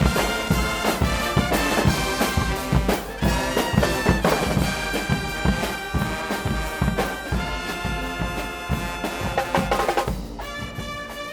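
Guggenmusik carnival band playing: brass (trumpets, trombones) over a steady, loud drum beat. About ten seconds in the drums drop out and the brass holds sustained chords.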